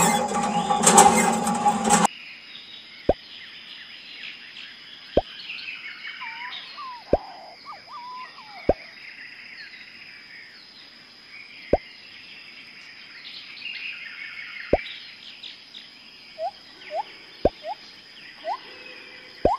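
A hollow water-drop plop about every two to three seconds, with short bird chirps now and then over a faint steady hiss. A loud rattling burst fills the first two seconds.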